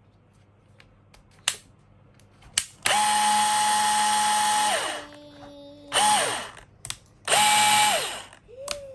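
Bosch GBH18V-26 cordless 18 V rotary hammer running free with no bit, its trigger pulled in short bursts. It gives a steady motor whine of about two seconds, then a short blip, then another run of about a second. After each burst the whine drops in pitch as the motor spins down. Two sharp clicks come before the first run.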